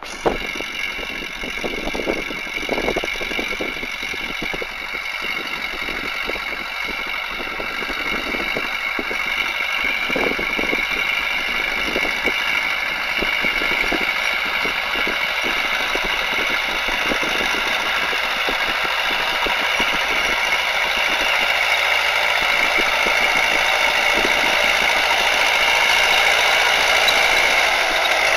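Diesel engine of a DT-75ML crawler tractor running steadily under load as it tows a hitch of three seed drills, growing louder as it approaches, with irregular knocks mostly in the first half.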